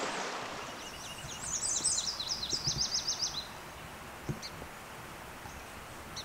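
A songbird sings a fast series of repeated high notes starting about a second in and lasting about two seconds, over quiet outdoor ambience. Rushing stream water fades out in the first second.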